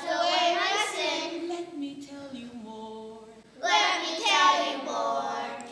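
Children singing a song together, louder at the start and again about two-thirds of the way in, with a quieter phrase between.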